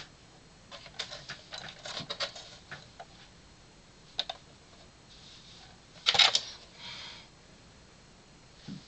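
Hard plastic toy tank (Hasbro AAT) being handled and turned over: a run of light clicks and knocks, then a louder brief rustle about six seconds in.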